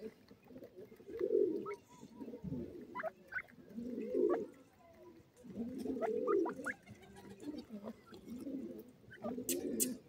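Dove cooing, soft low coos repeating about once a second, with a few short high chirps between them. A quick run of sharp clicks comes near the end.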